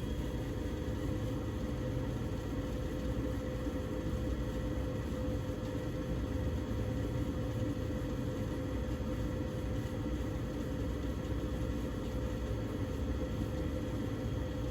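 Bryant Legacy gas furnace running: a steady hum with a constant tone over a low rumble.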